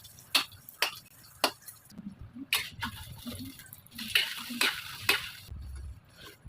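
A cooking utensil tapping and scraping against cookware while food is stirred, several sharp clinks, with short bursts of hissing about two and four seconds in.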